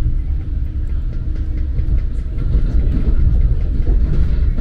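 Steady low rumble of a moving commuter train heard from inside the passenger car, with faint scattered clicks over it.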